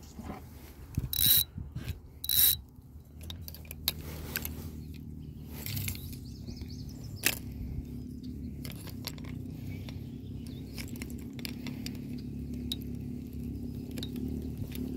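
Spinning fishing reel being cranked, retrieving line in a steady whir with faint clicking. Before the reeling starts, two short loud scraping bursts come about a second apart.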